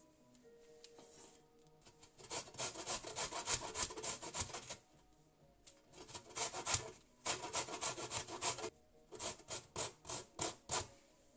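Lemon rind being grated on a stainless steel box grater to zest it: quick rasping strokes in three runs, then about six separate strokes near the end.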